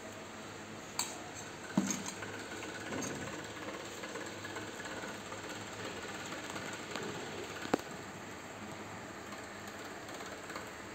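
A steel spoon knocking and clinking against stainless-steel bowls three times, once about a second in, again just after, and once near the end, over a steady background hum.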